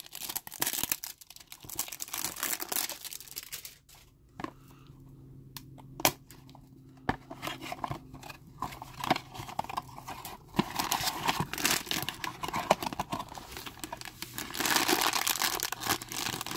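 Cardboard blind box being pried and torn open, flaps snapping and scraping, then the foil bag inside rustling and crinkling, loudest near the end.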